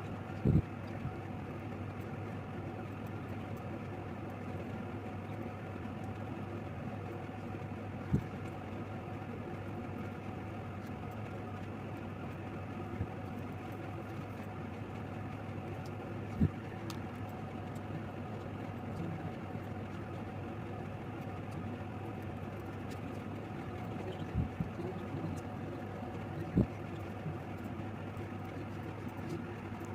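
Steady low background hum with a few scattered sharp clicks or knocks.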